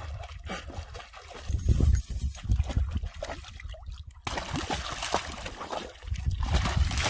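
A dog wading through a shallow stream, its legs splashing and sloshing through the water over a running trickle. Bouts of low rumble on the microphone come about two seconds in and again near the end.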